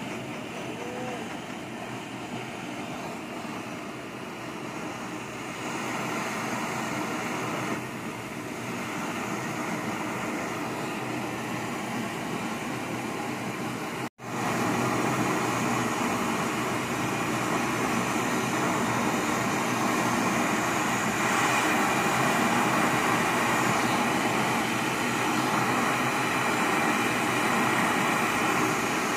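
Steady hiss of a gas torch. It breaks off for an instant about halfway through, then comes back louder.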